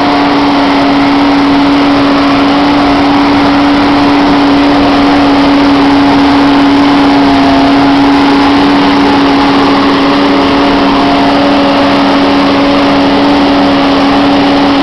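New Holland TM180 tractor engine running steadily under load, with one constant tone, while the towed rock picker drags through stony ground with a continuous rattle and scrape of gravel.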